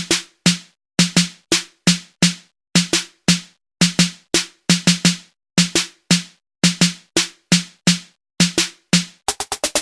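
Drum-machine beat from a Native Instruments Maschine: one short drum sample with a low pitched body repeats alone in a syncopated pattern, about three hits a second, and speeds into a fast roll near the end.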